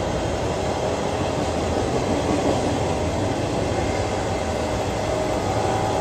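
A train passing, its cars rolling by in a steady rumble.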